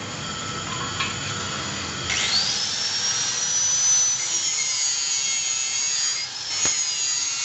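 Small high-speed rotary grinder spinning up about two seconds in to a high whine and grinding metal at a motorcycle exhaust pipe, throwing sparks. Its pitch sags and wavers as it bites, with one sharp click near the end.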